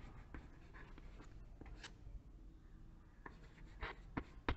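Chalk writing on a chalkboard: faint short scratching strokes, with two sharp chalk taps against the board near the end.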